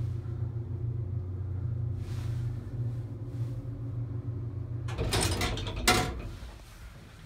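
Haughton elevator car travelling, with a steady low hum, then stopping about five seconds in with a rattling clatter and one sharp loud clunk.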